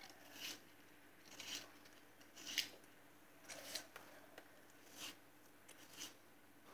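Peeled cucumber being twisted through a handheld pencil-sharpener-style vegetable slicer: faint cutting scrapes, about one a second, six in all.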